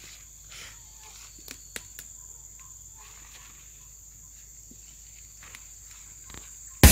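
Insects calling as one steady high-pitched tone, with scattered light clicks and rustles. Loud rock music with electric guitar starts abruptly near the end.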